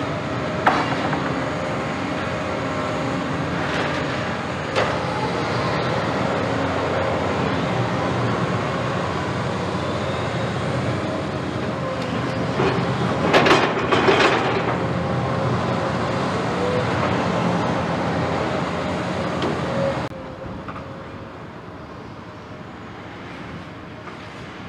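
CAT 329E hydraulic excavator's diesel engine and hydraulics running steadily with a held whine, while its demolition grapple knocks and clatters through brick and timber rubble, with a burst of loud crashes of falling debris about halfway through. About 20 s in, the sound drops to a quieter, more distant excavator working.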